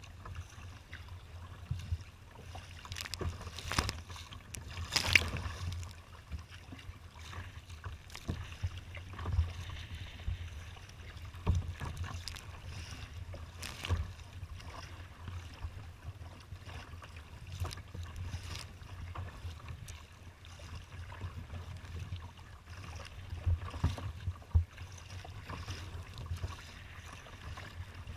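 Choppy water slapping and splashing against a kayak's hull in irregular bursts, several of them louder, over a steady low rumble of wind on the microphone.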